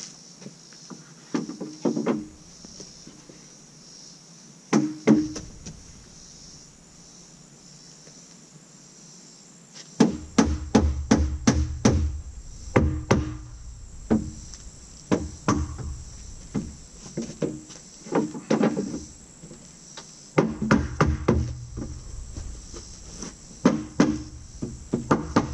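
Wooden shelf boards knocking against a wooden display tower as they are fitted onto its cross pieces. First a couple of single knocks, then long runs of rapid knocking and tapping as the snug-fitting boards are worked into place. A steady high insect buzz runs underneath.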